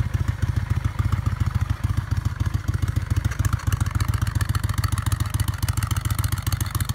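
Kawasaki VN 800's V-twin engine idling steadily, a fast, even train of exhaust pulses, while warming up from a cold start.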